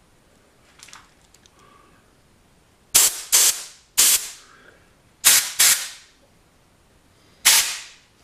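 Compressed-air blow gun fired in six short hissing blasts, each cut off quickly, to blow clogged cast-iron chips out of a tapped hole. They come in about three seconds in and run to near the end, mostly in quick pairs.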